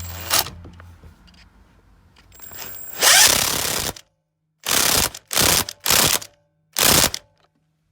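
Ratchet wrench with a 17 mm socket clicking as the Subaru Forester steering wheel's centre bolt is run down and tightened: a longer run of ratcheting about three seconds in, then four short ratchet strokes.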